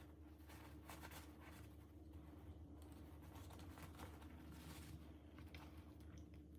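Faint rustling and soft scratchy handling sounds of toy packaging being unboxed, irregular light strokes over a steady low hum.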